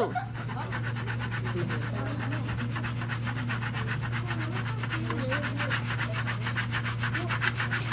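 Disposable aluminium baking pan of jello shaken rapidly back and forth on a wooden desk, scraping and rubbing against the wood in a fast, even rhythm of several strokes a second: a hand-made earthquake shake test.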